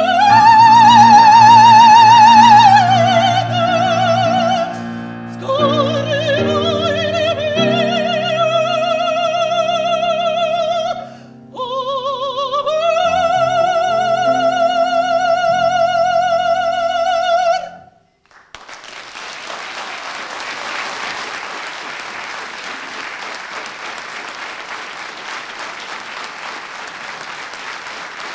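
Operatic soprano singing with grand piano accompaniment: three phrases on long held notes with a wide vibrato, the last held for about five seconds before it cuts off. The audience then applauds steadily through the last ten seconds.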